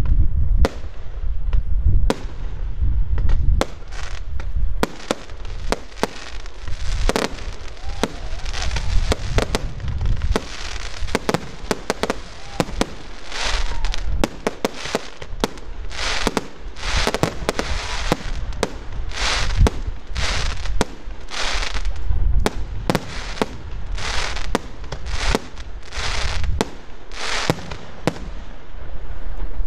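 Fireworks display: a rapid run of sharp bangs from bursting aerial shells, with short hisses between them that grow denser from about eight seconds in.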